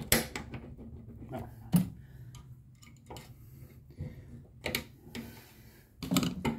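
Scattered sharp clicks and knocks, a handful spread out with a quick cluster near the end, from hand work unfastening the old bonnet gas strut from its mounts.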